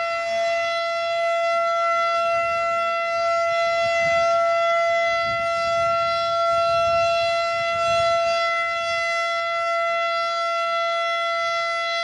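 Federal Model 5 outdoor warning siren sounding at full speed: one steady, unwavering high pitch with several overtones, not rising or falling.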